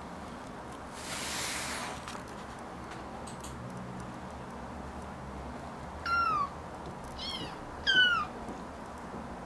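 Bengal kitten giving three short, high-pitched mews, each falling in pitch, the last the loudest. A soft rustle comes about a second in.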